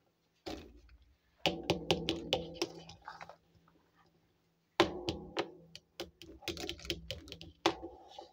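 Small plastic toy kitchen utensils clicking and clattering as they are handled and set down on a tabletop, in a few bursts of quick light taps with short pauses between.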